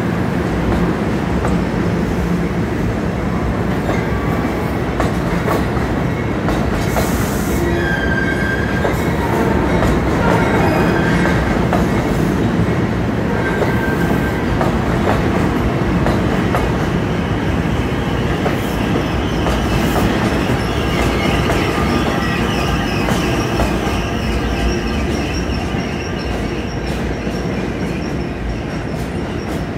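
NJ Transit Bombardier MultiLevel coaches rolling past as the train pulls out, with steel wheels clicking over rail joints and thin high wheel squeals joining in partway through and holding on from about the middle. The noise eases off near the end as the last of the train goes by.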